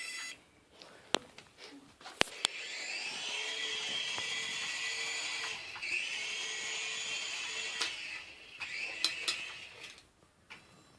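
Toy RC helicopter's small electric rotor motors spinning up and flying, a steady high-pitched buzzing whine for about five seconds that then winds down. A few sharp clicks come just before it starts, the loudest of them about two seconds in.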